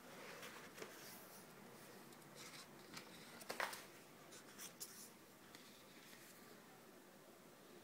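Faint rustling of magazine pages being handled and turned, with the loudest swish of a page about three and a half seconds in and a few small paper rustles near five seconds.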